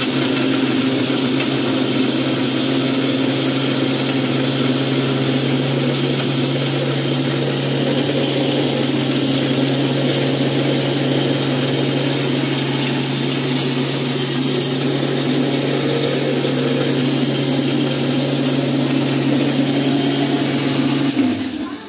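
Singer juicer-mixer-grinder's electric motor running steadily at full speed, its stainless-steel jar grinding onion, ginger, garlic, chilli and whole spices into a masala, with a high whine over a low hum. Near the end it is switched off and winds down.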